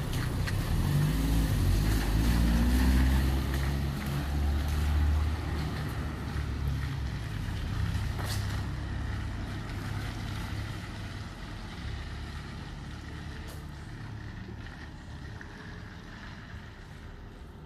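A motor vehicle's engine close by, rising in pitch as it pulls away in the first few seconds, then fading steadily as it moves off.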